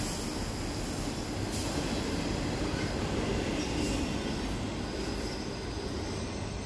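Autorack freight cars rolling past on the track with a steady noise of steel wheels on rail, fading gradually as the end of the train moves away.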